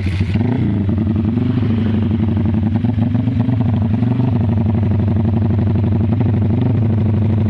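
Motorcycle engine fitted with an aftermarket BSS exhaust catching on a kick-start, then idling with a fast, even chopping beat, the so-called 'helicopter' exhaust sound. There is a short blip of throttle about half a second in.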